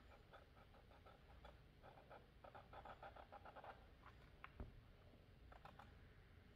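Faint scratching of a felt-tip marker drawing short strokes on paper, in quick clusters, with a soft knock about four and a half seconds in.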